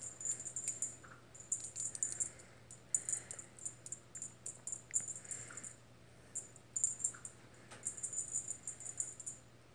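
A small cat toy jingling in short, irregular bursts as it is swished about and batted by a kitten's paws, with a few light clicks.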